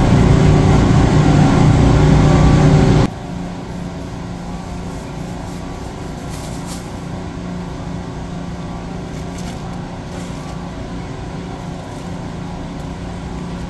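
Steady hum of a store's open refrigerated meat case and building ventilation, with a low tone running through it. A louder rushing noise stops abruptly about three seconds in.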